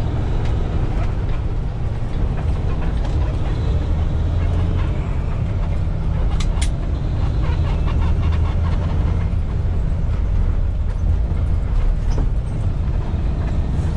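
Kenworth T680 semi truck under way, heard from inside the cab: its PACCAR diesel engine and the road noise make a steady, loud low drone.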